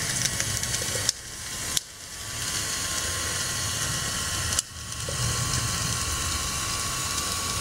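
Battery-powered model crawler undercarriage driving on paving stones: electric drive motors whining steadily and metal track links clattering. The sound cuts out sharply about a second in and again about halfway through, each time building back up as it drives off again.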